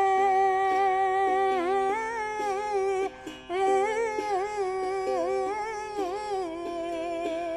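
A woman singing a Bengali Baul song, holding long notes with slow bends, to her own accompaniment of a plucked one-string ektara and a small duggi drum. The ektara plucks keep a steady, even rhythm under the voice, and the voice pauses briefly about three seconds in.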